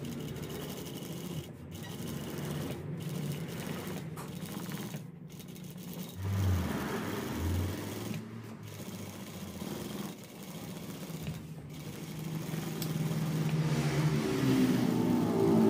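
Industrial single-needle lockstitch sewing machine running as it stitches, in runs broken by several short stops. Near the end a louder, engine-like revving sound builds up over it.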